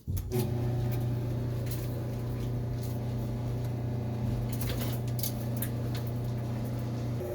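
Frigidaire Affinity clothes dryer starting up about a quarter second in, then running with a steady hum as the drum tumbles wet clothes, with scattered light clicks. Near the end the hum shifts in tone.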